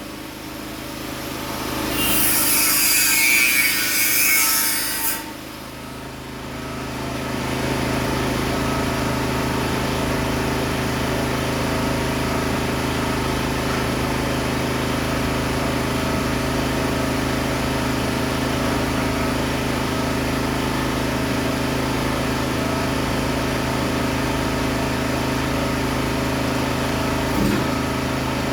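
Work machinery: a harsh burst of tool noise lasting about three seconds, starting about two seconds in, then a steady mechanical hum of constant pitch.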